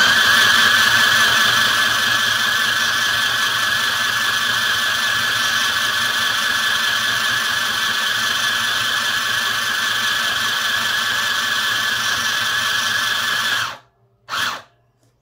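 Mini electric sewing machine running steadily at speed as it sews a line of shirring stitches, a steady high motor whine with a fast warble from the needle mechanism. It stops suddenly about a second and a half before the end.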